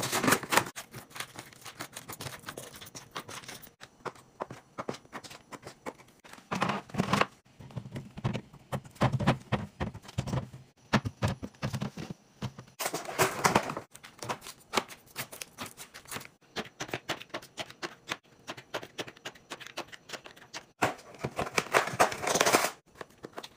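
Hands handling grocery packaging: cardboard multipacks of juice drinks and fruit pouches being opened and rustled, and items set down in fridge shelves and plastic bins, giving many small clicks and taps. Louder stretches of rustling come at the start, about a third of the way in, just past halfway, and near the end.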